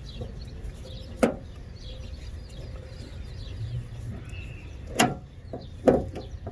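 Three short, sharp knocks of a tool and metal parts being handled while unbolting a car's tail light: about a second in, then twice close together near the end. Birds chirp faintly over a steady low rumble.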